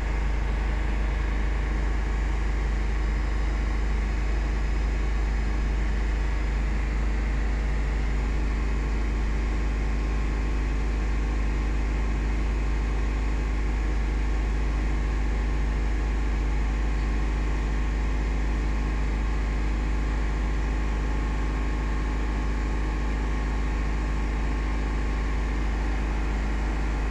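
Car engine running steadily, heard from inside the cabin as a deep, even rumble.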